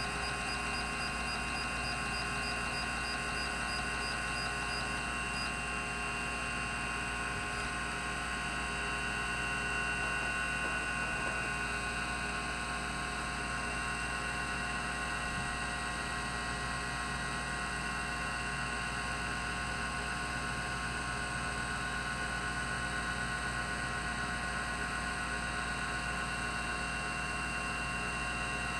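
Rodime RO352 3.5-inch hard drive running, its platters spinning at 3600 RPM with a steady whine and hum of several fixed tones. A faint, even ticking sounds for the first five seconds or so.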